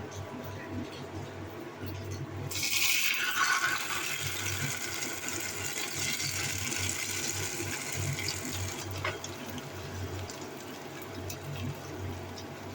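Water running from a tap, turned on about two and a half seconds in and shut off abruptly about six seconds later.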